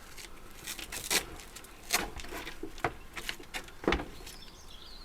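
Parts of a portable air conditioning unit knocking and rattling as it is handled and taken apart by hand: a handful of sharp knocks about a second apart, with low scraping and rustling between them.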